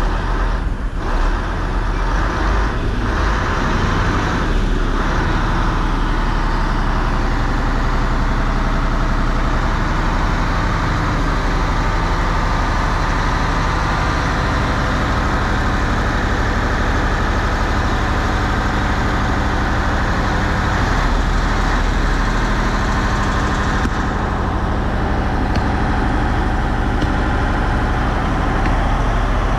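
Heavy engine of a truck-mounted crane, running steadily.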